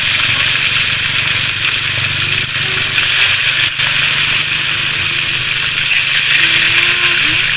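Food frying in hot oil: a steady loud sizzle with occasional sharp crackles, over a steady low hum.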